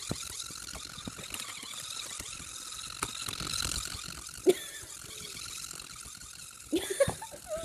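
Chubby Puppies battery-powered pug toy running, its small motor whirring steadily with clicking as it waddles, and a few short pitched sounds near the end.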